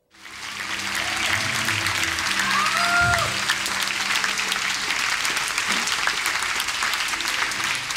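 A congregation applauding, with music playing underneath; the clapping fades in at the start and then holds steady.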